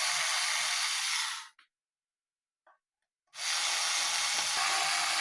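Steady background hiss that drops out into complete silence about a second and a half in and comes back after about two seconds, as at an edit cut.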